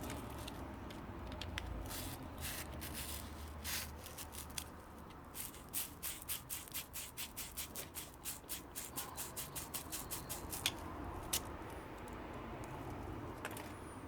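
Hand scrubbing of a rusted metal intake clip and its screw threads: a run of short scraping strokes, quickening to about four a second in the middle and stopping about eleven seconds in.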